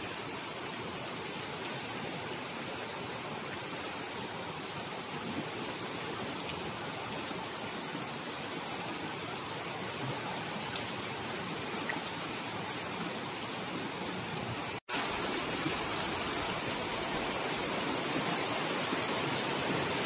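Heavy typhoon rain with wind, a steady rushing noise. It breaks off for an instant about fifteen seconds in and comes back slightly louder.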